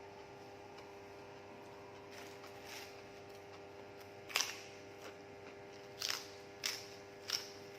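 Close-up crunchy chewing of crisp food, one sharp crunch about every two-thirds of a second from a little past the middle, over a steady electrical hum.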